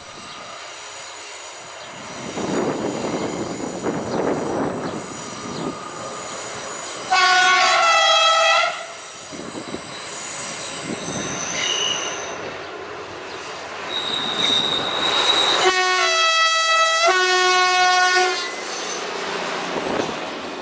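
Train's two-tone horn sounding twice, over the train running on the line: a blast of about a second and a half, about seven seconds in, and a longer one of about two and a half seconds near the end, each stepping between two pitches.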